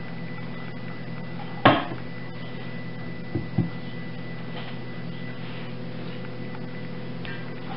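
Wooden single-wire soap cutter handled while cutting a bar from a loaf: one sharp clack about two seconds in, then two lighter knocks in quick succession about a second and a half later, over a steady background hum.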